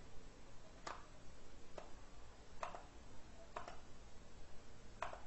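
Faint computer mouse clicks, five single clicks about a second apart, as settings are clicked through in a program.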